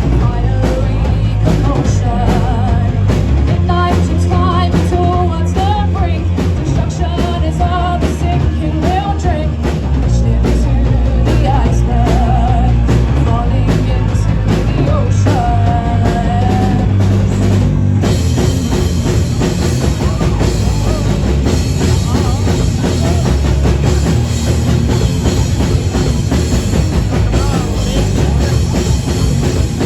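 Live rock band with drums, bass and electric guitar playing a song, a sung melody over the first half. About 18 seconds in, the band breaks into a louder, brighter and denser section.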